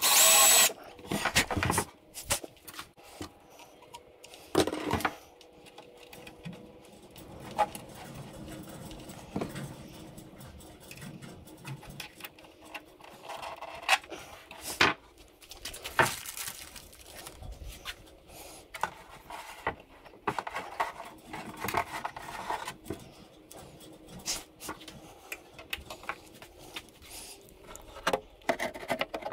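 A cordless drill runs briefly at the start, boring a hole in the transom of an RC hydro boat hull, with a second short run about a second later. After that come scattered clicks, taps and scrapes of small metal rudder parts and tools being handled on a wooden workbench.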